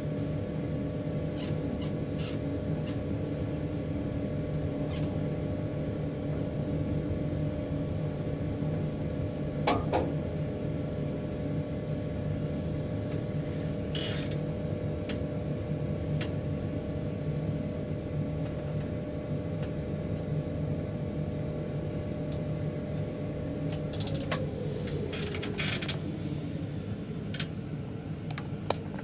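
Mobile crane's engine running at steady revs during a lift, a steady hum with a few faint clicks; about 24 s in the revs fall away, the pitch gliding down.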